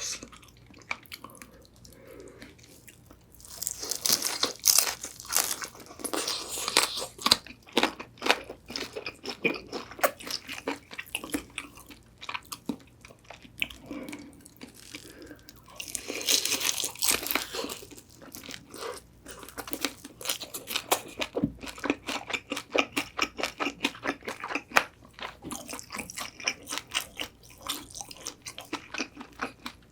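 Close-miked biting and chewing of crispy Korean old-style whole fried chicken: bursts of sharp, crackling crunches of the fried skin, then steady rhythmic chewing in the last several seconds.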